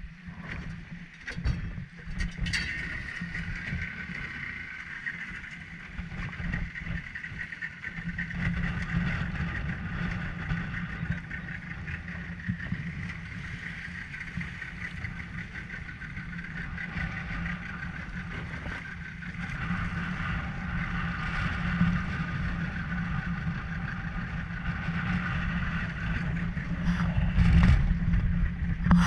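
Yamaha Enduro 75 two-stroke outboard motor running steadily at cruising speed, with a continuous low rumble and a steady high whine, as the skiff pushes through choppy water.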